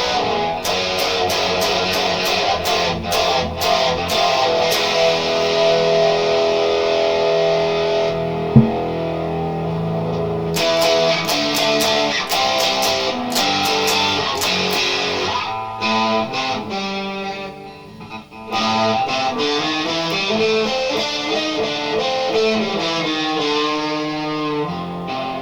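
Harley Benton JA-60 Jazzmaster-style electric guitar with a P90 pickup, played through an amplifier: full strummed chords for about the first ten seconds, then lighter picked notes and broken chords. One sharp click stands out about a third of the way through.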